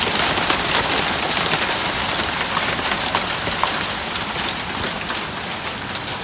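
Large hailstones and heavy rain pelting down: a dense, loud hiss full of sharp clattering impacts, easing slightly toward the end.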